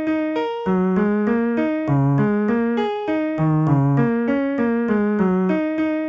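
Piano playing an even stream of single notes, about three a second, each note one digit of pi mapped to one of ten keys.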